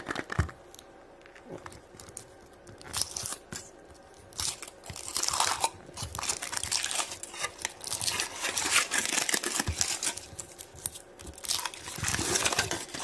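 Foil wrapper of a large Kinder Surprise egg being peeled and torn off by hand: irregular crinkling and crackling, sparse at first and busier from about four seconds in.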